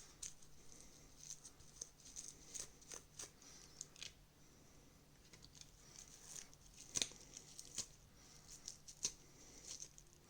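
Faint, irregular scratchy scrubbing and small ticks as a TV remote's parts are cleaned with alcohol to work the dirt out, with a couple of sharper taps about two-thirds of the way through and near the end.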